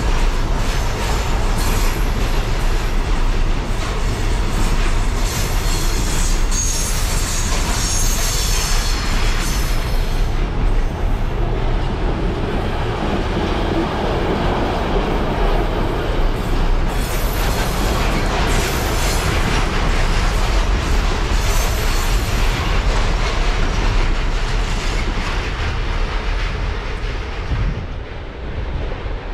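A train passing close by: a long, continuous run of wheel rumble and rail clatter, with stretches of high-pitched wheel noise. The sound drops off near the end.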